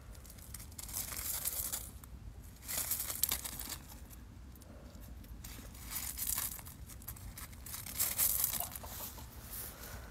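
Crunching and rustling steps on gravel, coming in irregular bursts about a second, three, six and eight seconds in, over a low steady rumble.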